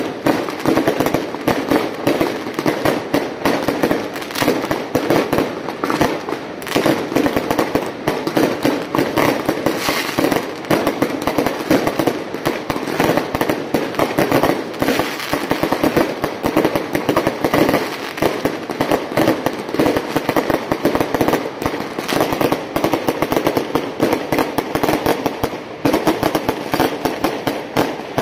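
Strings of firecrackers going off in a dense, continuous crackle of rapid bangs, with no break.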